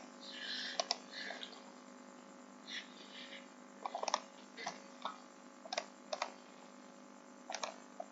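Faint, irregular clicks of a computer mouse and keyboard, some in quick runs of two or three, with a few short rustles, over a steady low hum.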